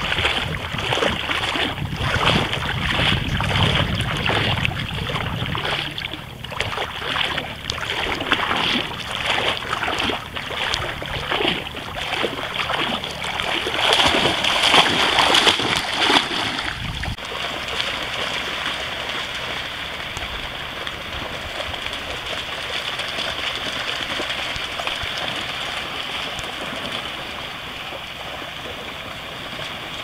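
Dogs splashing as they run through shallow seawater, a quick run of splashes that is loudest as one dashes past close by. About seventeen seconds in, it gives way to a steady hiss of wind and lapping water.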